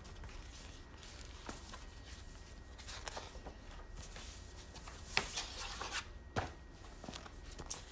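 Pages of a large picture book being handled and turned: soft paper rustles with a few light taps and flicks, the most marked a little after five seconds in and around six and a half seconds.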